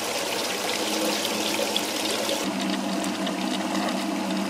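Live-well aerator pump running, pouring and splashing water drawn from a bucket into the live well as it fills, with a steady low hum that grows stronger about two and a half seconds in.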